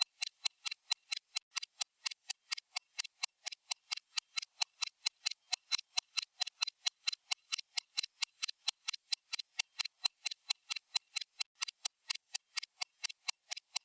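Stopwatch tick sound effect: fast, even, crisp ticks, about five a second.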